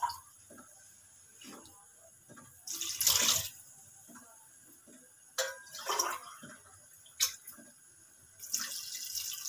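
Water poured from a glass into an aluminium cooking pot of raw meat and chopped vegetables, splashing in several separate pours, the loudest about three seconds in; about three glasses go in to cover the meat.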